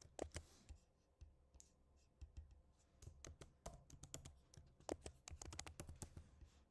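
Faint computer keyboard typing: a few separate keystrokes, then quicker runs of keys from about three seconds in.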